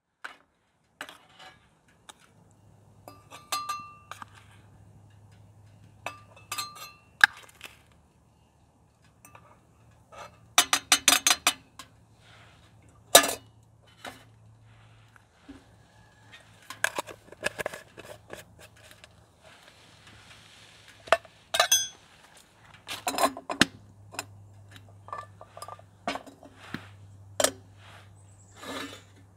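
Scattered clinks and knocks of dishes and utensils, with a quick run of clinks about eleven seconds in and a single louder knock soon after.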